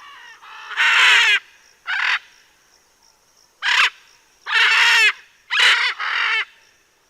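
Macaw giving a series of loud, harsh squawks, about six in a row, each up to about half a second long with short pauses between them.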